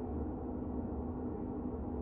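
Slow ambient music drone: a held low tone over a steady, gently pulsing deep rumble, unchanging throughout.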